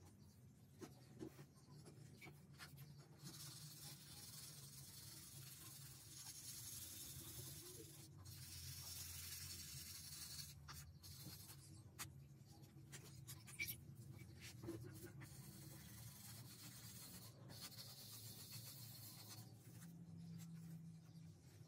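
Faint scratchy rubbing of a fine-grit foam sanding pad polishing a cracked and scratched clear plastic window piece, with a few light taps. The rubbing gets stronger about three seconds in and eases off near the end.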